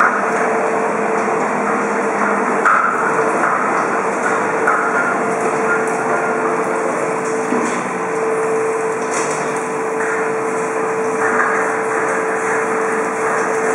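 Steady machinery hum with a held tone, overlaid by knocking and rattling as loaded metal smoking trolleys are wheeled over a tiled floor.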